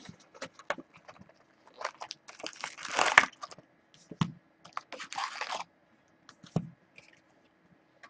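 Cardboard hobby box of trading cards being torn open and its foil-wrapped packs pulled out: a long tearing rip about two and a half seconds in, a shorter rustle around five seconds, with scattered clicks and taps of the packs on the table.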